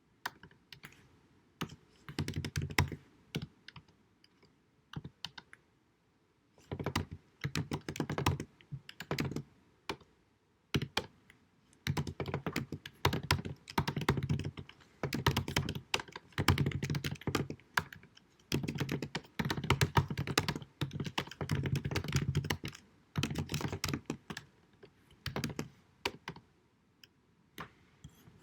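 Typing on a computer keyboard: fast runs of key clicks and thuds in bursts of a second or two, with short pauses between them, recorded at deliberately low sound quality.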